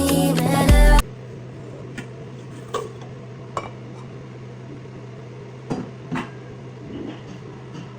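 Background music that cuts off about a second in, followed by a few light knocks and clinks over a steady low hum in a small room.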